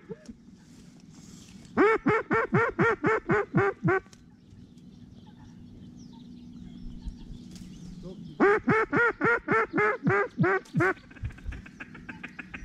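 Hunter's duck call blown in two quick runs of about ten loud quacks each, the first about two seconds in and the second near eight seconds in, calling to ducks passing overhead.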